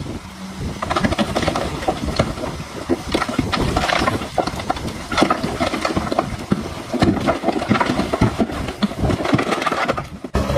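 DH17C3 crawler bulldozer working: its diesel engine runs under a dense, irregular clatter and knocking of tracks and pushed soil and stones.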